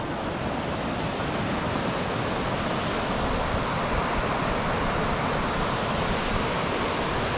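Steady rushing noise of strong wind buffeting the microphone, mixed with the river running through the rocky gorge below.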